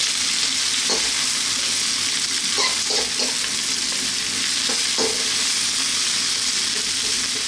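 Mixed vegetables sizzling in oil in a wok on maximum heat while being stirred and tossed with a spatula: a steady sizzle with a few light knocks of the spatula against the wok.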